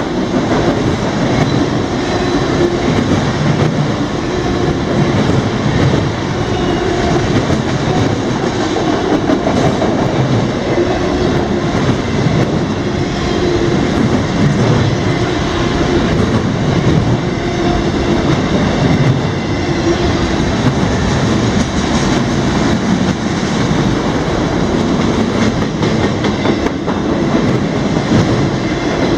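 Freight cars of a passing CSX train rolling by, a steady loud rumble and rattle of wheels on rail with light clicking at the rail joints.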